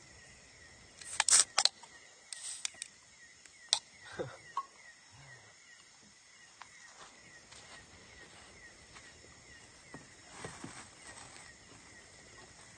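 Insects chirping in a steady, rapidly repeating pulse, with a few short, sharp rustles or knocks in the first few seconds, the loudest about a second in.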